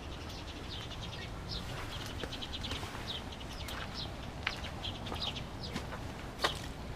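Small birds chirping in short, high, repeated calls over a low background rumble, with a couple of sharp clicks.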